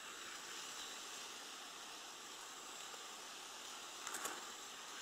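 Faint, steady outdoor background hiss, with a brief scratchy noise about four seconds in.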